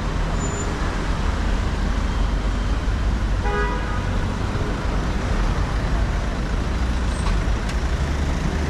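Steady city street traffic, with cars and vans passing and a low engine rumble. About three and a half seconds in there is a brief burst of short beeps.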